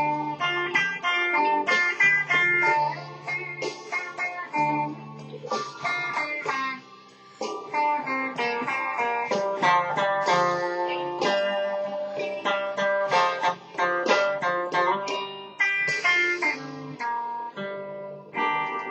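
Silvertone SS10/SS11 electric guitar being played: a quick run of picked single notes mixed with chords, notes ringing one after another.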